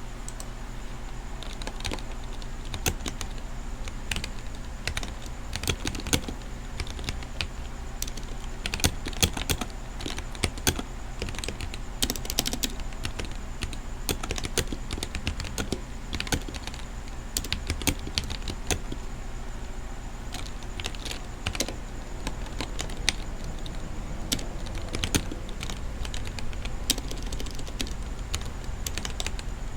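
Typing on a Womier K66 60% mechanical keyboard with Gateron red linear switches: a continuous, irregular run of key clicks, with occasional louder strokes.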